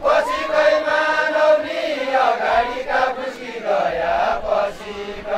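Group of men singing a deuda folk song together, a chant-like melody with long held notes.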